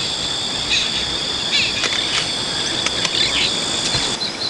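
Steady high-pitched insect drone in the bush, with a few short bird chirps over it.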